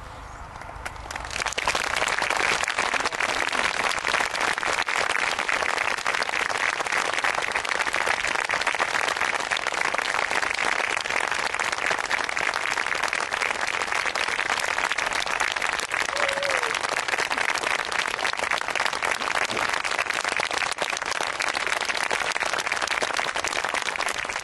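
Audience applauding: dense clapping that swells in about a second and a half in and then holds steady.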